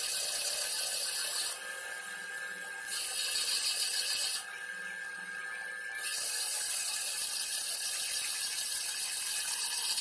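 Bench grinder wire wheel brushing a small metal part of a Bahco 31 adjustable wrench: a loud hiss each time the part is pressed to the wheel, three times, with the grinder's motor whining steadily in the two short gaps between.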